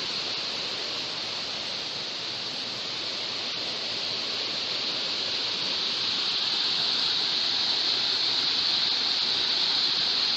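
Waterfall rushing steadily: a continuous hiss of falling water, brightest in the high range.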